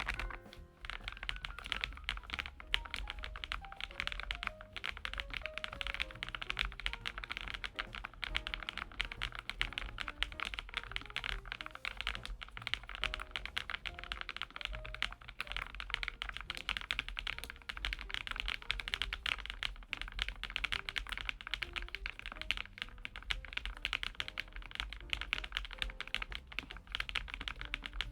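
Rapid, continuous typing on a Lofree Flow Lite low-profile mechanical keyboard with full-POM switches, keystrokes clicking densely throughout, with faint background music.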